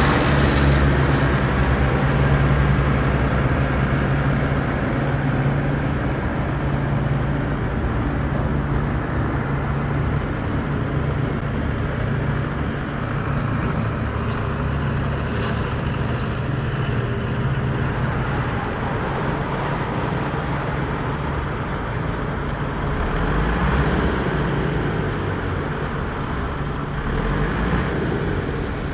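Radio-controlled construction vehicle models running, a continuous mechanical motor-and-gear whir with a steady low hum.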